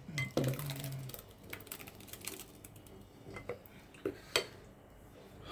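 Kitchen utensils and containers being handled, giving scattered light clicks and knocks over a quiet background, with a sharper knock a little after four seconds in.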